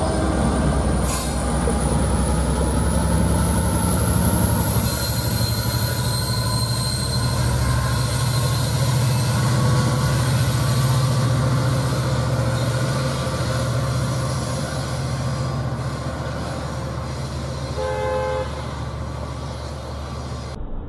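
Amtrak Piedmont passenger train departing: the diesel locomotive's engine rumbles under load as the cars roll past, with a thin high whine that slowly rises in pitch. About eighteen seconds in there is a short horn toot, and the train sound fades slightly as it moves away.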